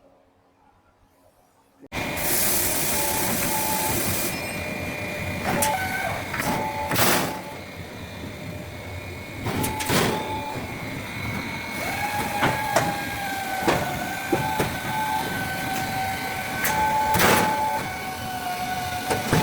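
Automatic sheet-metal duct production line starting up suddenly about two seconds in and running: a burst of hiss, repeated metallic clanks and knocks, and from about halfway a steady whine.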